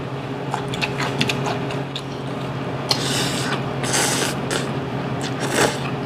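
People eating at a table: chopsticks and dishes clicking, and two short slurps about three and four seconds in, over a steady low hum.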